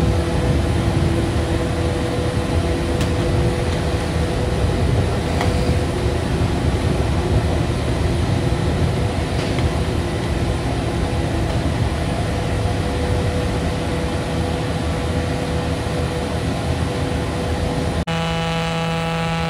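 Apron ground support equipment running steadily beside a Boeing 777-300ER: the air conditioning unit, ground power unit and jet air starter unit make a constant machine noise with a steady hum. Shortly before the end the sound changes abruptly to a different steady hum.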